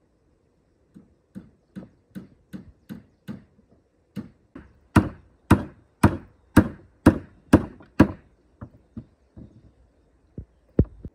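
A hand tool striking wood in a run of chopping blows, at about two a second. The blows grow heavier toward the middle, then give way to lighter taps and two last strikes near the end.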